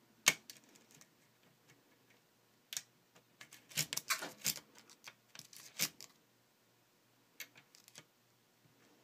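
Lock pick and tension wrench working the pins of a Prévost pin-tumbler lock with spool pins: scattered small metallic clicks and taps, coming in a quick cluster around the middle, as the last stubborn pin is worked.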